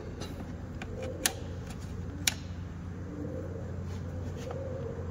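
Pliers working a hose clamp on the engine: two sharp metal clicks about a second apart and a few fainter ticks, over a steady low hum.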